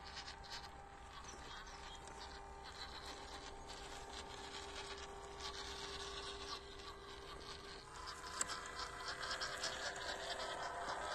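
RC crawler truck driving over dirt and rocks: a steady electric motor and gearbox whine with the tyres scrabbling and crunching small stones, growing louder as it comes closer. There is a sharp tap about eight seconds in.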